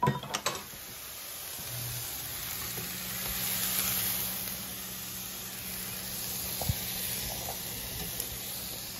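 Food sizzling as it cooks: a steady hiss with a low hum underneath, and a few light taps near the end.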